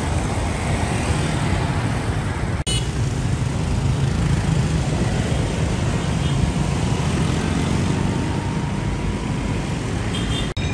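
Street traffic: the engines and tyres of a pickup truck, cars and motor scooters passing close by, a steady low rumble, with a brief dropout about two and a half seconds in.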